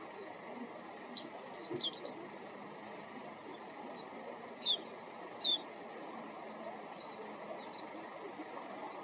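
Warbling white-eye (mejiro) giving short, high call notes that slide downward, singly and in quick pairs, over a steady low background noise.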